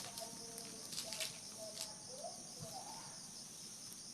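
Insects chirring steadily, with several soft whistled calls, two of them rising in pitch about two and three seconds in, and a few light clicks or rustles.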